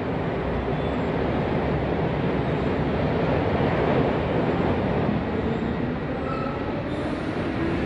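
A steady, even rumble of noise, like a moving vehicle, with faint tones coming in near the end.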